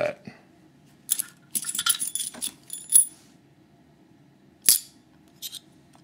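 A ring of four steel lock keys jingling as they are picked up and handled: a flurry of jingles for about two seconds, then two single sharp clinks near the end.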